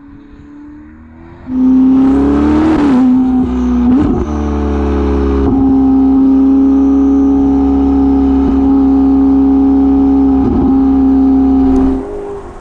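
Ferrari SF90 Spider's twin-turbo V8 through a Novitec exhaust with sport metal catalysts and carbon tailpipes, driven at steady revs. It starts fainter with a falling note, turns suddenly loud about a second and a half in, holds a steady pitch, then drops away sharply near the end.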